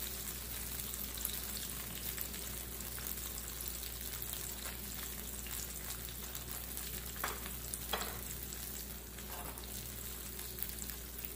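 Corn tortillas soaked in birria consommé sizzling steadily in a hot griddle pan as quesabirrias fry, with a few faint taps as shredded beef is laid on top.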